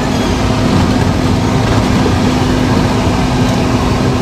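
A car being driven, heard from inside the cabin: steady engine drone with a constant low hum and road noise.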